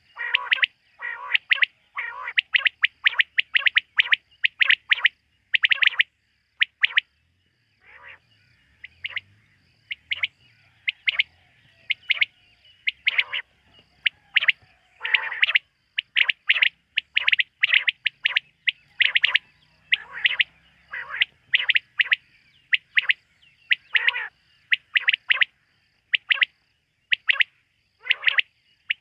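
Quail calling at night: short, sharp notes repeated over and over, often in quick groups of two or three, with brief pauses between bouts.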